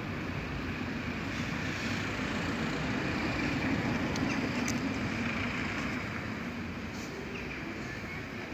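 A road vehicle passing: a steady rush that swells to its loudest about four seconds in, then slowly fades.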